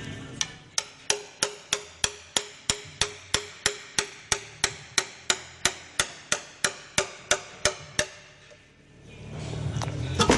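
2004 Ford Transit TDCi diesel engine running with a sharp, even metallic knock about three times a second, the big end bearing knock of a worn bearing. The knocking stops about 8 seconds in, and the engine hum returns near the end.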